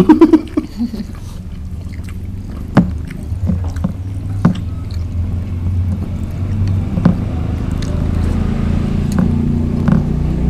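Sharp taps and clicks of eating by hand from plates, a few seconds apart, over a steady low rumble that grows slowly louder toward the end.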